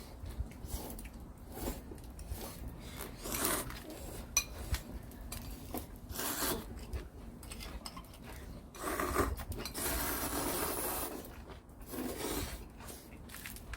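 Eating sounds at a meal of ramen: irregular scraping and clinking of utensils against dishes, with a longer stretch of noisy eating sound about nine seconds in.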